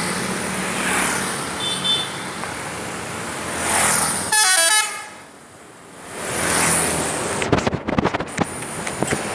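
A bus's multi-tone 'telolet' musical horn plays a quick run of stepped notes for about half a second, some four and a half seconds in, over the noise of passing traffic. Vehicles swell past several times, and a few sharp knocks come near the end.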